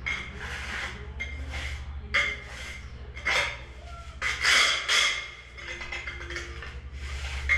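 A straightedge scraping in repeated strokes over damp sand-cement mortar, screeding the shower floor level, the loudest strokes about halfway through. A steady low hum runs underneath.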